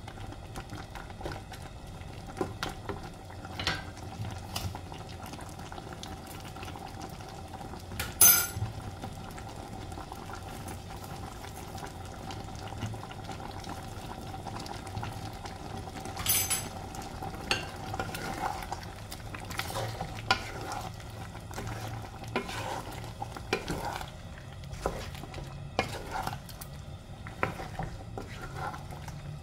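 Wooden spatula stirring and scraping a nonstick pan of squash, string beans and prawns simmering in coconut sauce: soft scrapes and small knocks over a gentle bubbling sizzle, with a steady hum beneath. Two sharper knocks stand out, about eight seconds in and again about sixteen seconds in.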